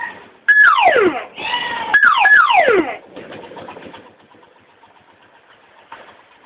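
Custom multi-tone electronic siren on a motorcycle, sounding through a horn speaker: two short bursts of a held high tone that breaks into quick downward pitch sweeps. It stops about three seconds in.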